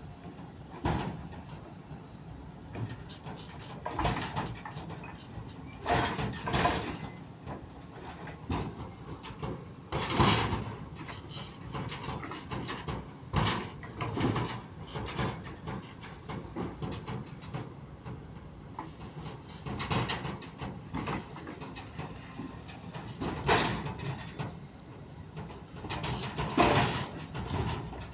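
Kobelco SK130 excavator with a grapple working: the engine runs steadily under irregular clanks and scraping bursts every second or few.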